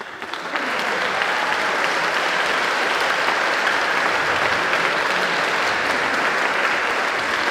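Crowd of spectators clapping: a warm-up round of applause asked for by the host. It swells in over the first half second, then holds dense and steady.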